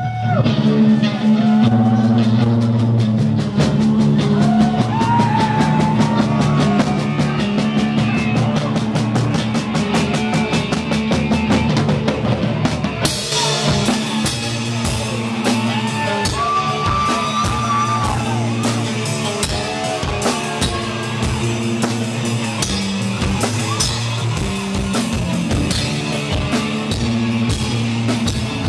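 Rock band playing live: distorted electric guitar over a drum kit keeping a fast, steady beat. About 13 seconds in, the sound turns suddenly brighter and fuller.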